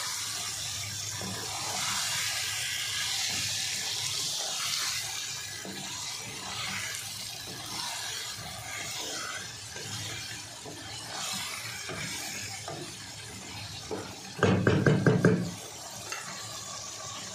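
Chicken curry gravy sizzling in a non-stick pan as a wooden spoon stirs it, with soft scraping and sloshing. About fourteen seconds in comes a second-long run of rapid knocks, the loudest sound.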